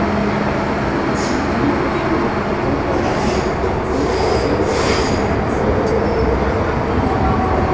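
MTR Metro Cammell M-Train electric multiple unit with GEC GTO chopper control, heard from inside the car running through the tunnel: a steady, loud rumble of wheels and traction, with a faint whine. Brief high hisses or squeals come about one, three and five seconds in.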